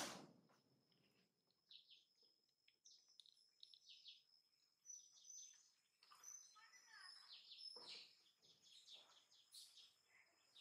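Faint, scattered chirping of small birds: many short, high notes, some sweeping quickly downward, over a thin, steady, high tone.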